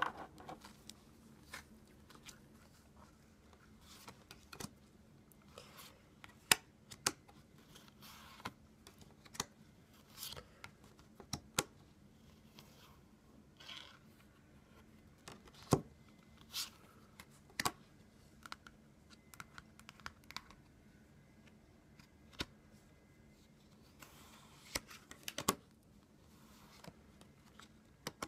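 Playing cards being handled: irregular sharp taps and clicks of the card stock with short rustles of cards sliding, the loudest clicks about six and sixteen seconds in.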